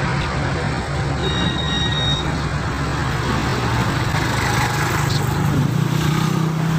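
Street traffic noise: motorcycle and car engines running with a steady rumble, and a brief high tone about a second in.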